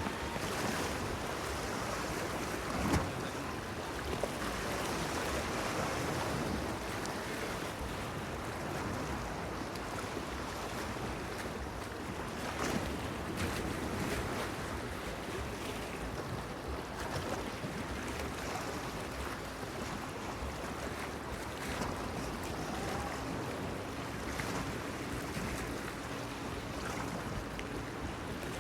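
Small waves lapping and splashing against a stone breakwater, with wind. A faint steady low hum comes in about two-thirds of the way through.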